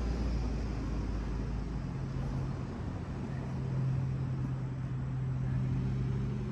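A steady low mechanical hum, like a motor or engine running, with a steady low tone that comes in about two seconds in and holds.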